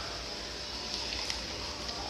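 Slime being stirred in a bowl as it thickens with activator: faint sticky clicks a second or so in, over a steady hiss.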